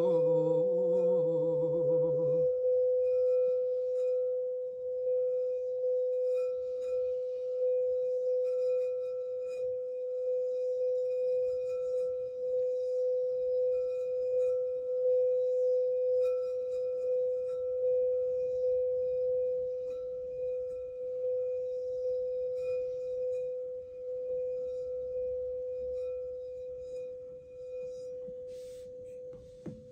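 A singing bowl rings with one steady tone that fades slowly, faint higher overtones above it. A wordless sung voice over it stops about two seconds in.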